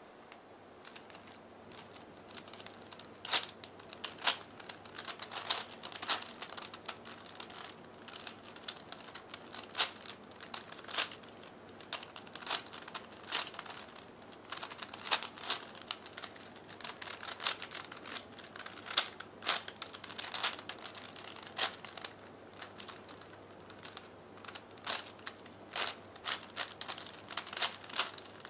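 A 5x5x5 V-Cube puzzle being turned by hand, its plastic layers clicking and clacking at an irregular pace as they rotate, with short runs of quick turns between pauses.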